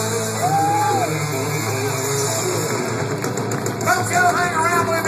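Live country-rock band playing through an outdoor PA: guitars over a steady bass line, with a voice singing out about four seconds in.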